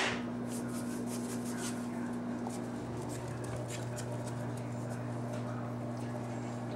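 Faint, scattered clicks of a boxer puppy's claws on a tile floor as it walks about, over a steady hum.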